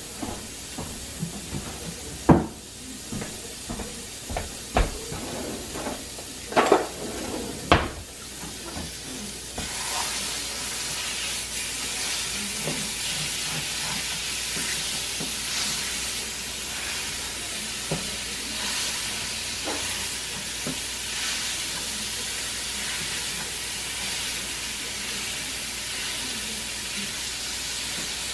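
Ground meat sizzling and being stirred and broken up with a spatula in a nonstick frying pan on an electric stovetop. A few sharp knocks come in the first eight seconds; about ten seconds in, the sizzle gets louder and then holds steady.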